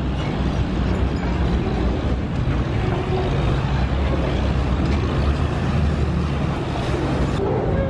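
Boat engine running steadily, a deep, even drone, with the wash of churning river water.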